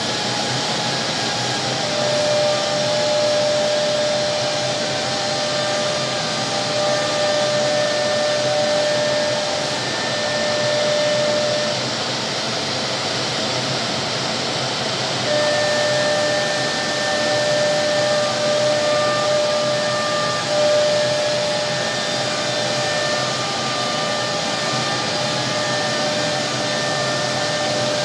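Woodmaster WM-RT1325V CNC router running and cutting, a steady machine noise with a high whine that drops out for a few seconds midway and then returns.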